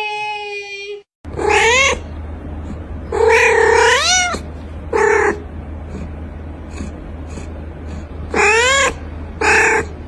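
A cat meowing: about six drawn-out meows, most rising then falling in pitch, with a short break about a second in.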